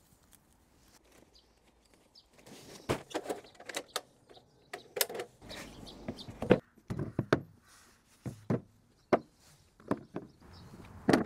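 Irregular knocks, clicks and thuds of equipment being handled, starting a couple of seconds in: folding metal sawhorses being set up, a wooden board laid across them, and cordless power tools and batteries set down on the board.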